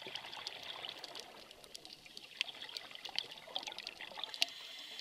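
Underwater sound of a scuba diver's exhaled bubbles gurgling and hissing, coming in two waves, with many short sharp clicks scattered throughout.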